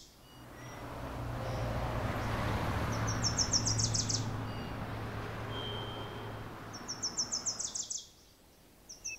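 Outdoor nature ambience: a wash of noise swells and fades over several seconds above a steady low hum. A high, rapidly pulsed chirping trill sounds twice, about four seconds apart.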